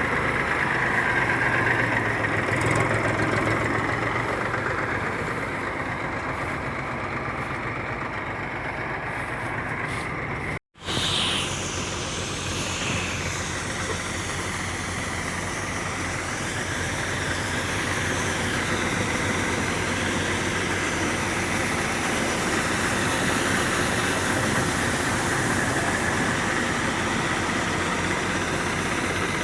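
Combine harvester running steadily with a constant engine and machinery drone. The sound cuts out for a moment about ten seconds in, then carries on.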